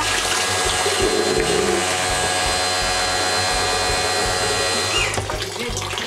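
Electric pressure washer running with a steady whine as water sprays and splashes.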